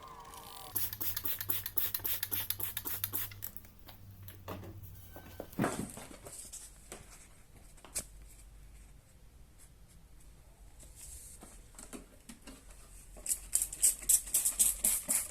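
Sandpaper rubbed back and forth by hand on a plastic headlight lens: fast scratching strokes in a burst of about three seconds near the start and another near the end, with sparser scrapes between them.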